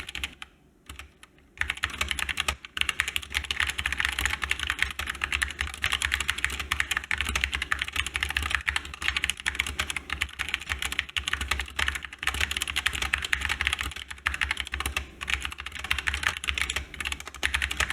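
Fast, continuous typing on a GK61 mechanical keyboard with Gateron brown optical switches, a dense clatter of key clicks. It pauses for about a second and a half near the start, then runs on with only brief breaks.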